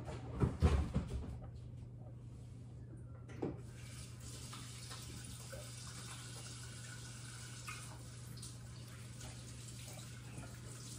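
A few knocks in the first second and another at about three and a half seconds, then a kitchen tap running into the sink from about four seconds in, over a steady low hum.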